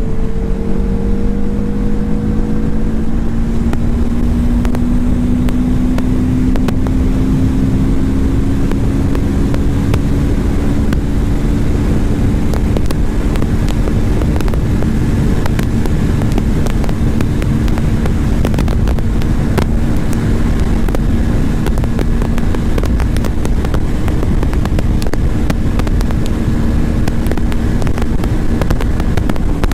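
Motorcycle engine running at road speed, its pitch climbing slowly over the first ten seconds or so and then holding steady, under heavy wind and road noise.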